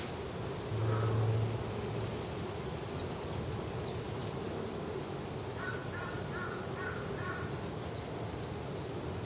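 Outdoor woodland ambience: a crow caws several times in quick succession about six seconds in, small birds give short high chirps that fall in pitch, and a steady low hum runs underneath. A brief, louder low hum sounds about a second in.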